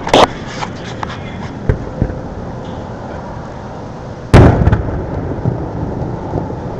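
Fireworks: a loud boom a little past four seconds in with a short rumbling echo, after a sharp crack at the start and a couple of faint thumps about two seconds in.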